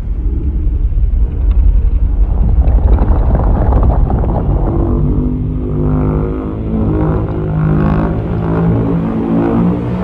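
Monster sound effect: a loud, deep rumble, joined about halfway through by sustained low tones that build toward dark music.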